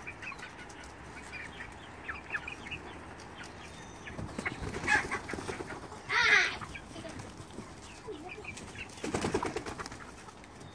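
Chickens clucking in short scattered calls, with bursts of wing-flapping and one loud squawk about six seconds in.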